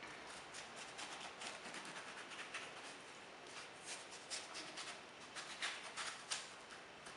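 A small kitchen knife scraping the soft, seedy pulp out of a peeled half of long gourd, in a quiet run of short scraping strokes, a few a second.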